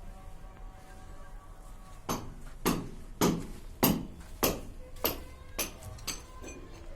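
Hammer blows on a construction site: about eight sharp, ringing strikes at an even pace of under one a second, starting about two seconds in.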